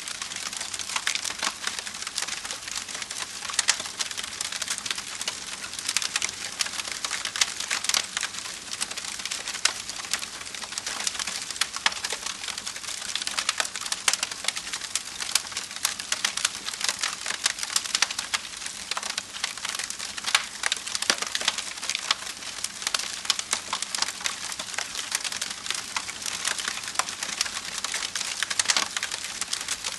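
Wood fire crackling, with a constant stream of small irregular pops and snaps over a soft hiss.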